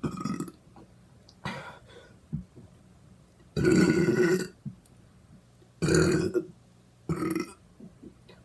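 A person burping five times in a row, with short pauses between. The longest and loudest burp comes near the middle and lasts about a second.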